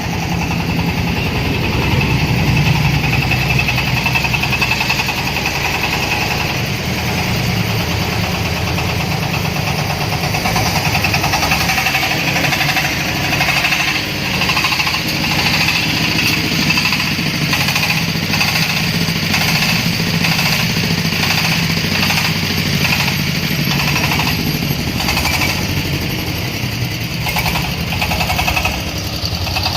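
Corn sheller machine driven by a 26 HP engine, running steadily. About halfway through, a regular beat joins the steady engine drone.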